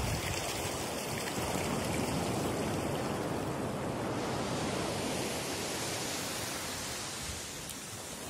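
Shallow sea surf washing up over a sandy beach: a steady hiss of water and foam. The hiss grows brighter about four seconds in and eases off near the end.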